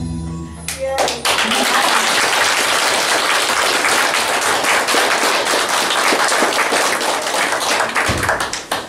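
Audience applause: many people clapping, starting about a second in as a children's song ends, and dying away near the end.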